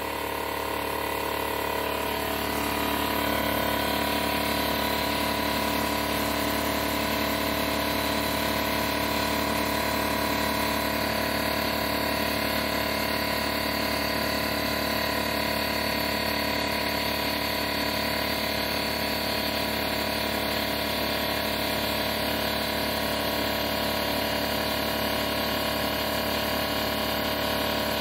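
Craftsman 6-gallon oil-free pancake air compressor running, its motor and pump refilling the tank after the pressure switch has cut it back in. A steady drone with many tones over a hiss, getting a little louder over the first few seconds, then holding level.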